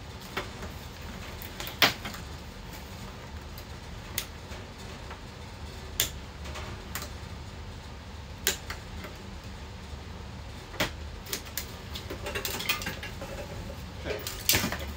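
Scattered clicks, knocks and rattles of an animatronic's metal frame and plastic parts being handled in a cardboard box, with a busier patch of rustling and clatter near the end as a part is lifted out. A low steady hum runs underneath.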